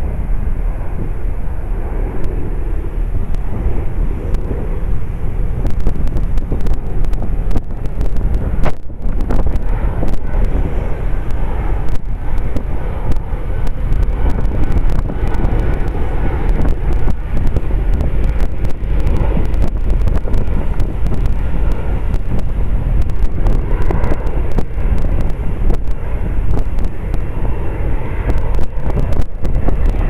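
Strong wind buffeting the camera's microphone: a loud, deep, unsteady rumble with crackling gusts.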